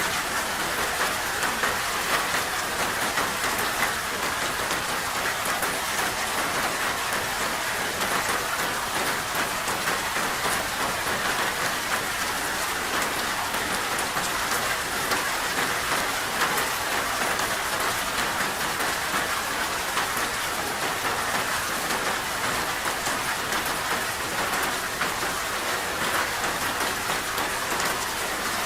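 Steady rain falling: an even hiss of many drops striking a surface, holding the same level throughout.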